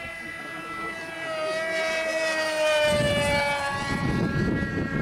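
RC model airplane's motor and propeller whine, growing louder and then falling in pitch as the plane flies past at speed. A rough low rumble joins about three seconds in.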